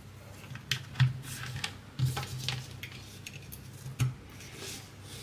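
Clicks and knocks of USB cables being handled and a USB plug being pushed into its socket, with the loudest knocks about one, two and four seconds in.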